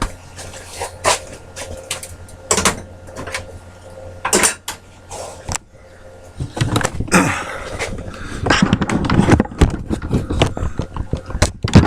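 Scattered knocks and clatter of objects being handled on a workbench, a few separate knocks at first, then busier and denser handling noise in the second half.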